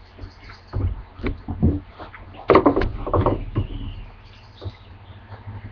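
Puppy at play: a few bumps and knocks, then a short, loud burst of scuffling noise about two and a half seconds in.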